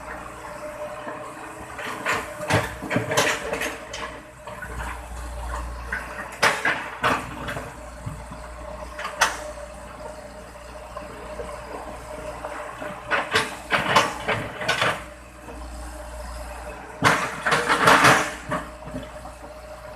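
Hitachi EX120-5 hydraulic excavator working in a river: the diesel engine hums steadily while the bucket splashes and churns through water in several surges every few seconds, the loudest near the end. There is a single sharp knock about nine seconds in.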